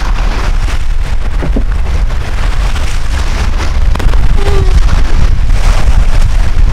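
Strong wind buffeting the microphone over choppy lake water splashing at the shore. The wind noise gets louder about four seconds in.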